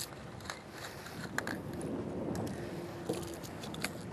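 Steady wind and water noise on a small boat at sea, with a few faint, scattered clicks and knocks.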